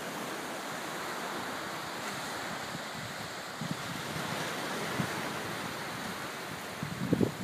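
Steady surf washing on the shore, with wind noise on the microphone and a short louder low rumble near the end.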